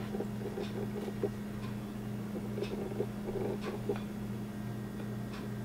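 A steady low hum with a few faint, soft taps and knocks as a sheet of rolled fondant is handled and laid over a cake on a plate.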